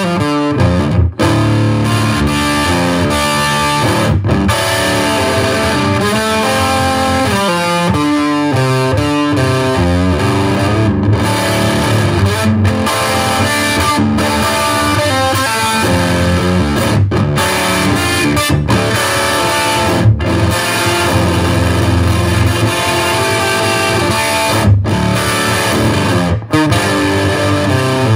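Electric guitar, a Gibson Les Paul Studio tuned down a whole step, playing a blues riff, with a few brief stops between phrases.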